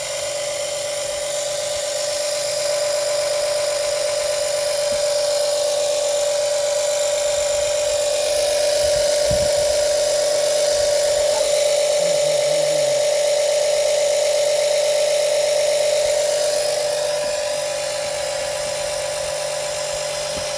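Small battery-powered fluid transfer pump running with a steady high whine as it pumps ATF into a truck's transfer case. It gets a little louder about eight seconds in and eases back a few seconds before the end.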